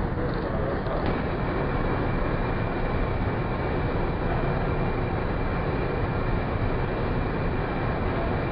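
Steady rushing air and machinery noise of a paint spray booth's ventilation. A faint high steady tone joins in about a second in.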